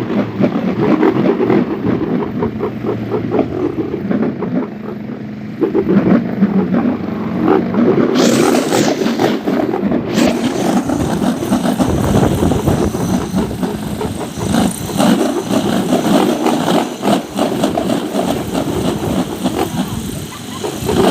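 Wind-driven propeller toy (enter-enteran) spun by strong wind, whirring with a rough, fluttering buzz and a steady low hum, loud throughout. The hum drops away about eight seconds in, and a short hiss follows.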